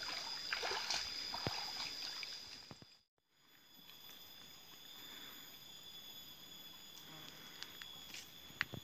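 Water splashing and trickling as a person wades out of a shallow stream, over a steady high buzz. After a cut, a quieter outdoor background with the same high buzz and a few footsteps on a dirt path near the end.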